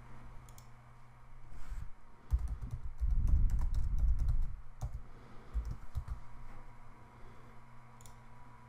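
Typing on a computer keyboard, a quick run of keystrokes from about two to five seconds in, with a few single mouse clicks before it and one near the end.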